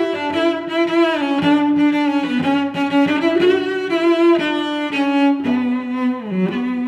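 Instrumental background music: a slow melody of held notes that slide from one pitch to the next.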